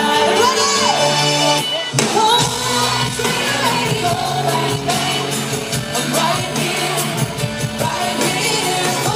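Live pop band music with a woman singing wordless vocal runs over it.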